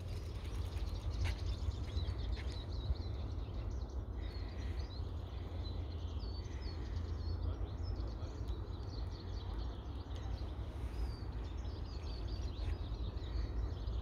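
Wind rumbling on the microphone, with small birds chirping faintly in the background.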